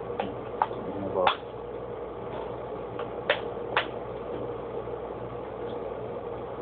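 Light clicks and knocks from hands handling the metal case of an Avaya IP Office 500 V2 control unit, about six in all, the loudest about a second in, over a steady electrical hum.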